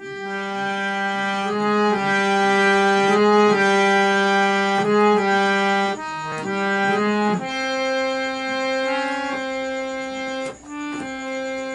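Intro music: a slow melody of long held notes with an accordion-like sound, the last note held for about three seconds before a short break and a new note near the end.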